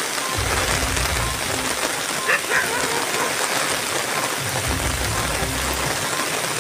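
Steady rain falling on a waterlogged field of ripe paddy, an even hiss, with a low rumble coming in twice.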